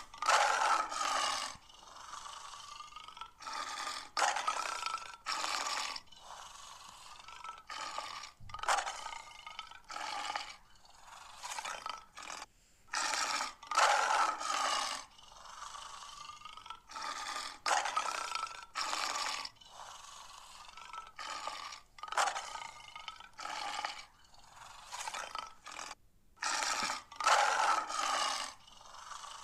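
Lion roaring and growling in repeated loud bursts of a second or two, a few seconds apart, thin-sounding with little deep bass.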